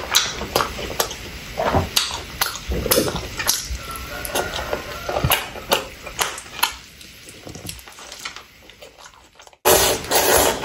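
Close-miked eating sounds: wet chewing and mouth clicks, fading to softer chewing, then loud noodle slurping in quick bursts near the end.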